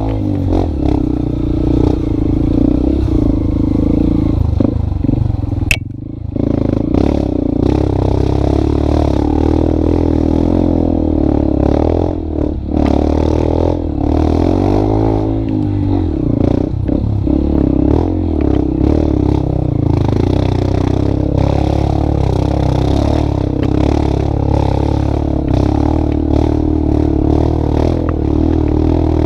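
A motor vehicle engine running steadily, its pitch rising and falling once about halfway through, with a single sharp click about six seconds in.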